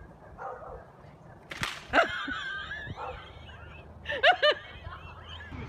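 A sharp crack about a second and a half in as a woman goes over with a white plastic lawn chair. It is followed by people laughing and shrieking, loudest around four seconds in.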